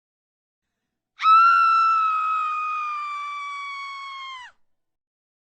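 One long high-pitched scream, used as a sound effect. It starts abruptly about a second in, holds one pitch that sinks slightly and grows fainter, and cuts off after about three seconds.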